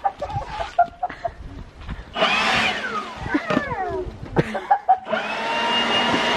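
Handheld leaf blower given a short blast about two seconds in, its whine falling away as it spins down, then switched on again near the end and running at a steady pitch. Before the first blast, an excited dog whines in short high notes.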